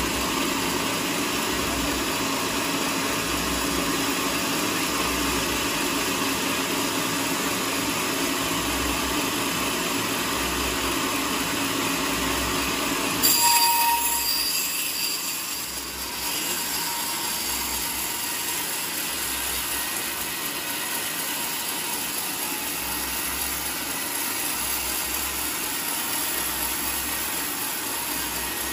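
Vertical band sawmill running as its carriage feeds a teak log through the blade. About 13 seconds in there is a brief, louder, shrill burst, after which the sawing sound carries on a little quieter and thinner.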